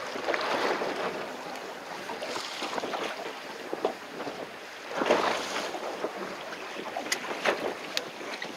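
Wind buffeting the microphone and water sloshing against a small fishing boat's hull at sea, swelling and fading in surges, with a few sharp clicks near the end.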